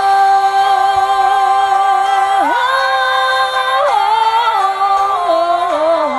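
A young woman singing solo, holding one long note and then moving through a few held notes, stepping up and then down.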